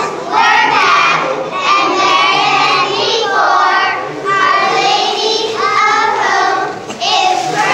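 Young girl cheerleaders chanting a cheer together in sing-song phrases.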